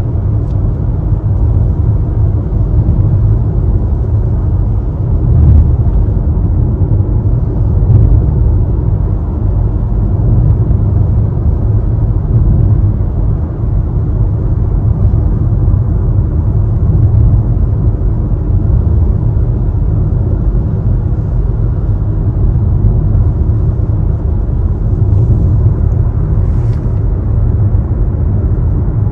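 Steady low rumble of a car driving at motorway speed on a wet road, heard inside the cabin: tyre and engine noise.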